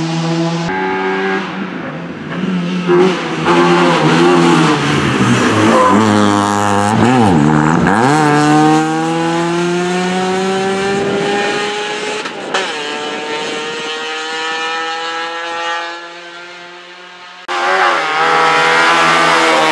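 Opel Astra rally car's engine revving hard as it passes and pulls away, the pitch climbing steadily through a gear and dropping sharply at each change. The sound fades for a moment about three-quarters through, then cuts back in loud.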